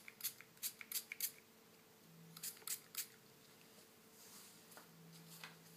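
Small pump spray bottle of ZAGG installation solution squirted in quick short bursts, about three a second, wetting the screen protector film: a run of five squirts, then three more about two seconds in.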